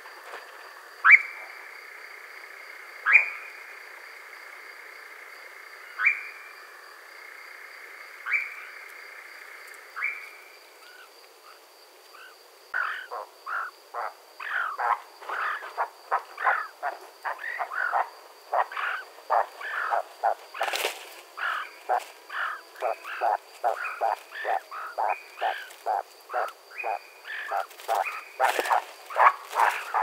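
European nightjar churring, a steady trill that shifts pitch once, broken by a sharp rising call every two to three seconds. The churring stops about a third of the way in, and a dense series of short calls, several a second, takes over until the end.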